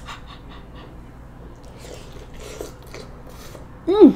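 Faint wet mouth clicks of someone chewing hot corn, then near the end a loud hummed "mm" through a closed, full mouth that falls in pitch.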